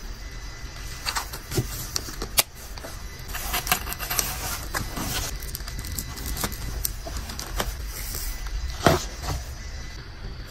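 Hands packing a jewellery order: clicks and taps from a small heart-shaped jewellery case being handled and closed, then crinkling tissue paper as it is wrapped, with a loud knock about nine seconds in.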